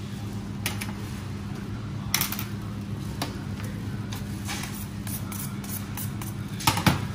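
A steady low machine hum with scattered short clicks and knocks, the loudest a quick pair near the end.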